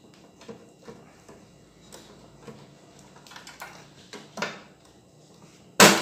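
Wire connectors being pulled off the terminals of a microwave oven's control board: scattered light clicks and rattles, then a loud sharp snap near the end as a connector comes free.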